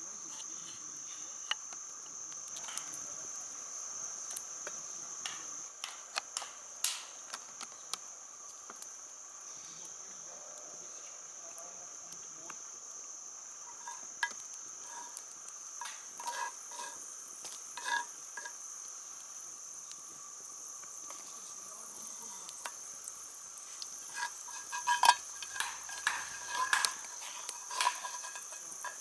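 Insects chirring steadily at a high pitch in the woods, overlaid by scattered sharp clicks and knocks that come most thickly near the end.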